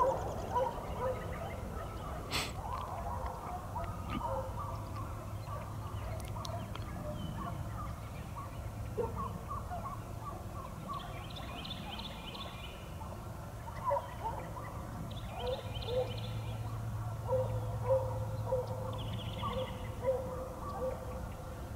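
A pack of deer-chasing hounds baying as they run, many short overlapping barks and bawls from several dogs.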